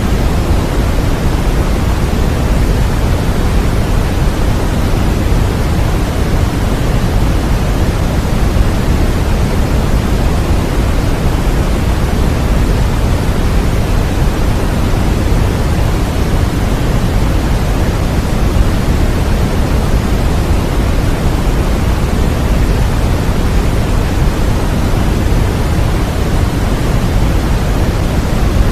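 Steady generated sleep noise: an unchanging hiss, heavier in the low end than the top, like pink noise.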